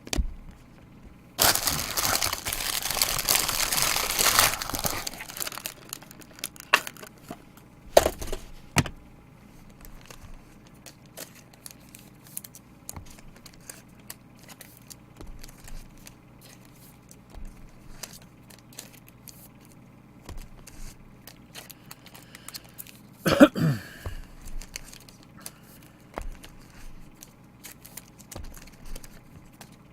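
A trading-card pack wrapper torn open and crinkled for a few seconds, then light clicks and taps as the cards are handled. A couple of sharp knocks follow, and about two-thirds of the way through comes a brief squeak that falls in pitch.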